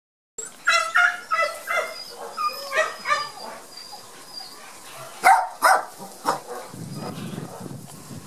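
Border Collie puppies yipping: a quick run of short, high-pitched yaps through the first three seconds, then a few louder yips around five to six seconds in.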